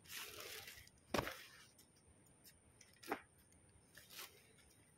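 Faint handling noise of clothes and plastic bags being rummaged through by hand, with a short rustle at the start and a few sharp crackles, one about a second in and others around three and four seconds in.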